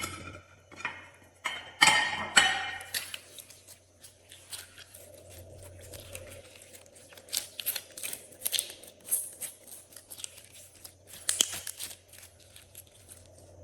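Close-up sound of hands working glossy slime: an irregular run of sharp, sticky clicks and crackles, loudest in the first few seconds and again in a busy patch past the middle.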